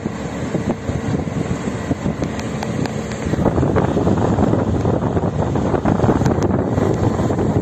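Road and wind noise of a moving car, with wind rushing on the microphone; it gets louder about three seconds in.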